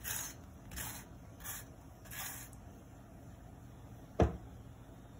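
Slotted spatula spreading ghee over a paratha on a tawa: four short scraping strokes about three-quarters of a second apart, then a single sharp knock about four seconds in.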